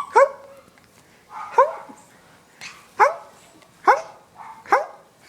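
Five short, sharp barks about a second apart, each rising quickly in pitch.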